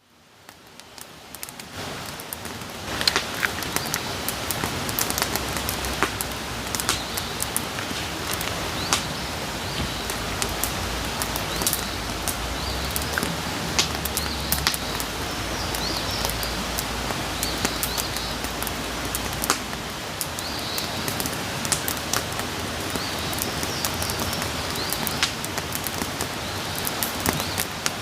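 Outdoor campfire burning, its wood crackling and popping in frequent sharp snaps over a steady hiss, fading in over the first couple of seconds. Faint bird chirps sound in the background.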